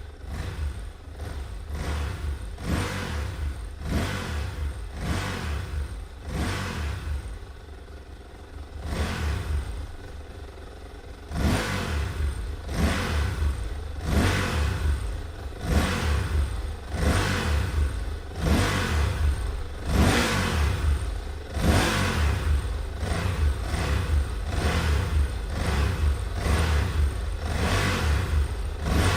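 Motorcycle engine revved over and over, the throttle opened in short bursts about a second apart, each one a quick rise in pitch over a deep engine rumble. The revving eases off briefly about a third of the way in, then resumes and carries on.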